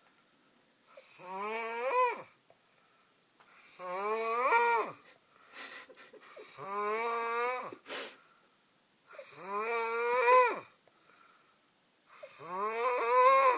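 A man snoring loudly in his sleep: five long snores about every two and a half to three seconds, each rising in pitch and then breaking off, with a couple of short breathy puffs in the gaps.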